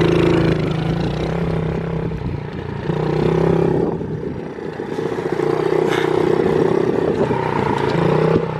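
Small dirt bike engine running at a fairly steady pitch, growing louder and fainter several times as the bike moves around.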